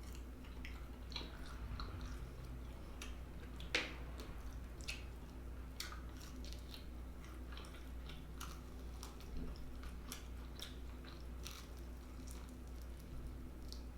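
Close-miked chewing and biting of fried chicken wings in buffalo sauce: a run of scattered wet, crisp clicks and smacks, with one louder crunch about four seconds in.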